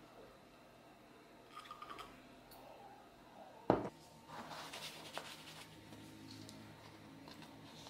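A few faint clinks of a glass mug, then a single sharp thump about halfway through as the sneakers land on the tiled floor, followed by scuffing and rustling as socked feet slip into the sneakers.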